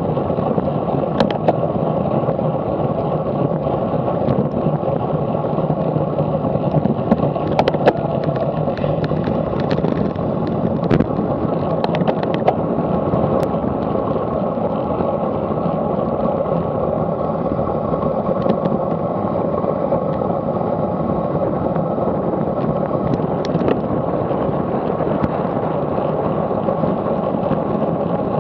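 Steady rush of wind and tyre noise from a road bike riding fast on tarmac, picked up by a bike-mounted action camera. Scattered sharp ticks and rattles from the bike, most about a third of the way in and again near the end.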